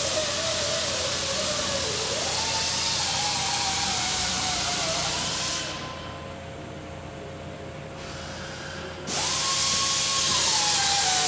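Air-powered cleaning tool hissing with a wavering whine as metal parts are cleaned. The air cuts off about five and a half seconds in and comes back on some three and a half seconds later.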